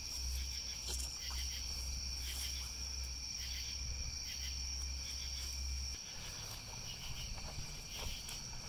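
Crickets chirring steadily in a high, continuous trill, with a low rumble underneath that stops about six seconds in.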